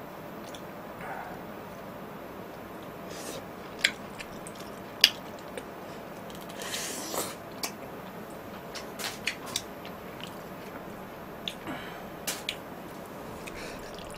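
A man eating spicy jjamppong seafood noodles and mussels: close, wet chewing and mouth sounds, with scattered sharp clicks and taps, the loudest about four and five seconds in.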